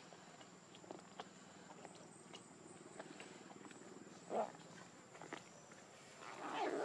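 Two short monkey calls over faint ticking and rustling: one brief call about four seconds in, and a longer, louder one near the end.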